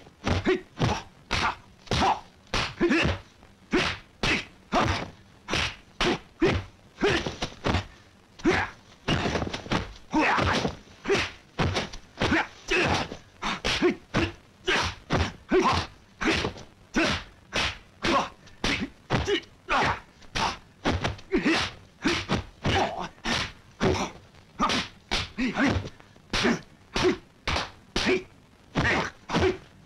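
Kung fu film fight sound effects: a rapid, unbroken string of punch and block impacts, about two a second, some landing in quick pairs.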